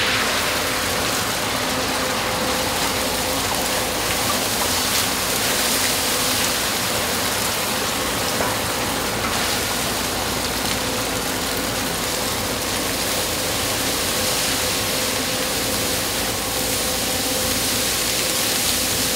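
Large industrial fried-rice stir-frying machine running, a steady hiss of frying over a steady machine hum.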